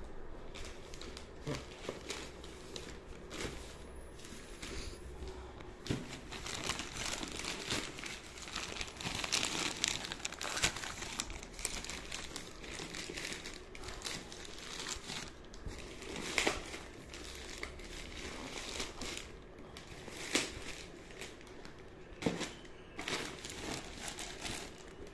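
Plastic courier mailer bag crinkling and rustling in irregular bursts as hands work inside it and pull out a cardboard box, busiest partway through.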